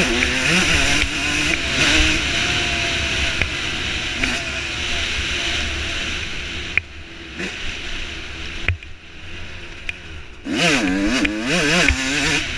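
Dirt bike engine under way, its pitch rising and falling as the throttle opens and closes through the gears. About seven seconds in it eases off and runs quieter for a few seconds, then revs hard again with the pitch swooping up and down near the end, over steady wind rush on the helmet microphone.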